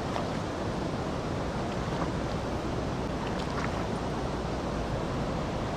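Steady rush of shallow river water and wind on the microphone, with a few small splashes from a king salmon thrashing in the shallows.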